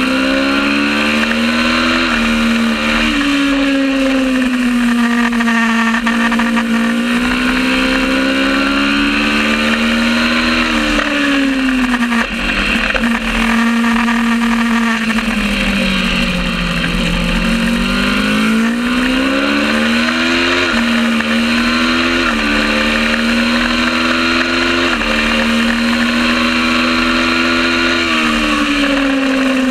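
Kawasaki ER650 Supertwin race bike's parallel-twin engine running hard at high revs. Its pitch climbs and then drops in several abrupt steps through gear changes, dips low about 17 seconds in, and climbs again.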